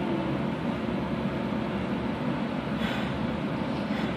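Running noise of a Kobe City Subway 3000 series train with Hitachi GTO inverters: a steady rumble of wheels on rail. The inverter's falling whine dies away just after the start as the train slows. Two faint clicks come in the second half.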